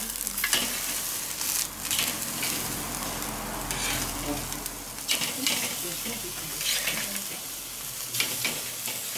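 Veal tomahawk steaks sizzling on the grate of a charcoal kettle grill as they are flipped with metal tongs, with several clicks of the tongs against the meat and grate.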